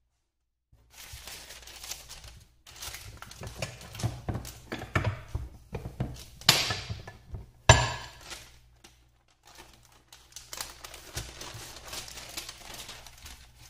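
Parchment paper crinkling and rustling while a tortilla press is worked by hand, with one sharp knock from the press a little before halfway through. After a short pause, the paper crinkles again as it is handled toward the end.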